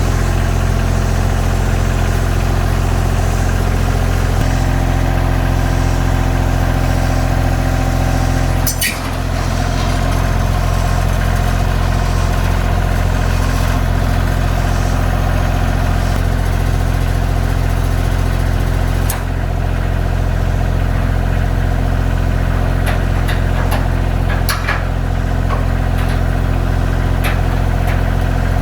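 Kioti CK2610 compact tractor's diesel engine running steadily while it lifts a load on its pallet forks. A few sharp knocks come through it, about a third of the way in, two-thirds in and again near the end.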